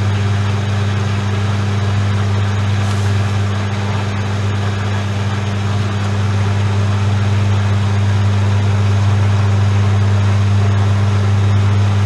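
Regal 8121 washing machine's drain pump running: its standard asynchronous (AC) motor gives a loud, steady low hum, with water noise from the pumping over it. The hum is what spoils the machine's 'ultra quiet' claim.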